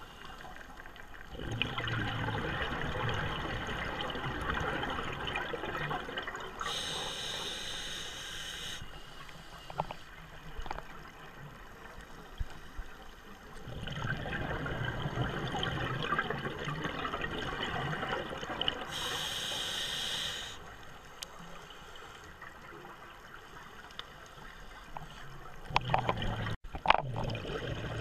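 Scuba diver breathing through a regulator underwater: two long bursts of exhaled bubbles, each followed by a short hissing inhale. A few sharp clicks come near the end.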